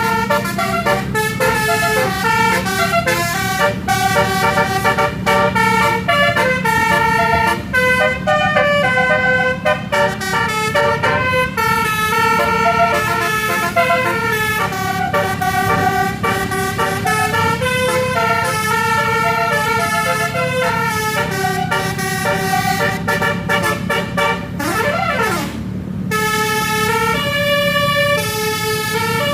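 Tourist bus's multi-tone musical horn (telolet/basuri) playing a melody in quick stepped notes, over the bus engine running. Near the end a short siren-like rising-and-falling whoop cuts in, then the horn melody stops briefly and starts again.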